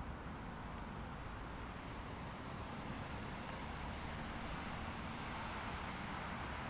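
Quiet outdoor background: a steady low rumble and hiss of distant traffic, with no single event standing out.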